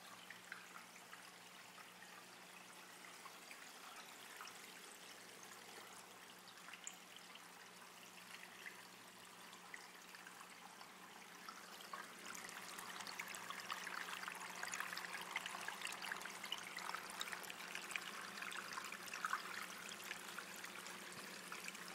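Indoor stone fountain: water trickling and splashing down through a wire-mesh column of stones, a continuous patter that grows louder a little past halfway, over a faint low steady hum.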